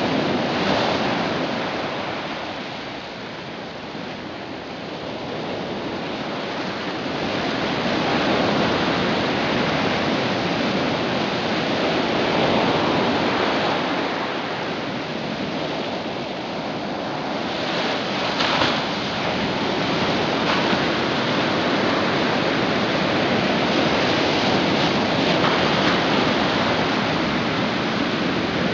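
Ocean surf on a rocky shore: a steady rush of breaking waves that swells and ebbs over several seconds, with one short knock about two-thirds of the way through.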